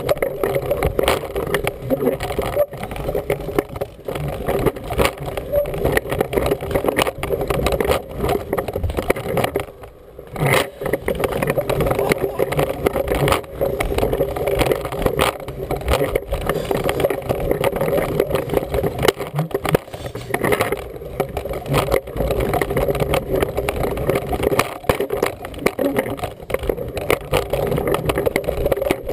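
Wheels of a toddler's push-along walker rolling and rattling over a hard floor, heard close up from a camera mounted on the toy, with a dense run of small clicks and knocks. The rolling stops briefly about ten seconds in, then carries on.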